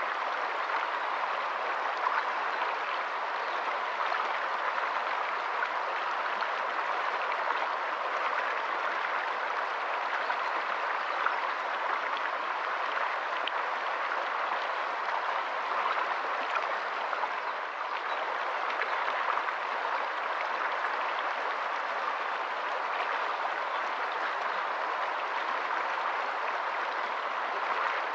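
Shallow rocky stream running over stones and small riffles: a steady, even rush of flowing water.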